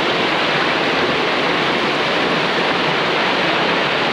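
Creek water spilling over a small waterfall drop in a narrow rock slot, a loud, steady rush.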